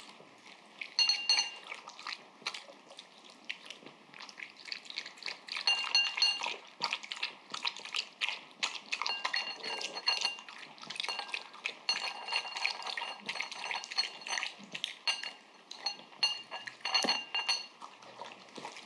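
Papillon dog eating udon noodles and vegetables in broth from a glazed ceramic bowl: wet lapping and chewing with many small clicks, and clusters of clinks where its teeth knock the bowl and it rings briefly.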